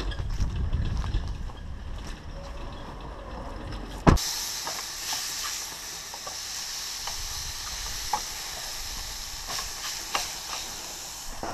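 A low rumble of wind on the microphone. After a sharp click about four seconds in, meat frying in a pan on a portable gas stove gives a steady high sizzle, with light taps and scrapes of a spatula against the pan.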